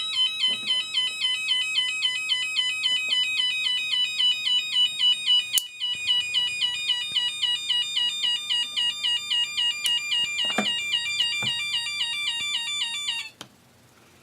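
Elenco AK-100 learn-to-solder kit's electronic siren sounding through its speaker: a loud tone that sweeps up and repeats about two and a half times a second, then cuts off near the end. It is the circuit working as designed now that the correct R5 resistor is fitted.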